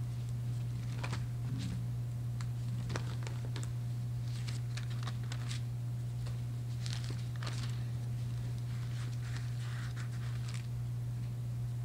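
Thin Bible pages being leafed through: soft papery rustles and crinkles coming on and off, busiest in the middle and later part, over a steady low hum.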